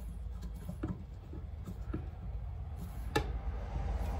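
Light metal clicks and taps from handling the Corvette's fuel door hinge assembly as its small screws are snugged up, with one sharper click about three seconds in, over a steady low hum.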